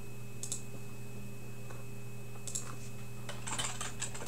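Light clicking taps over a steady electrical hum: a single tap twice, then a quick run of taps in the last second.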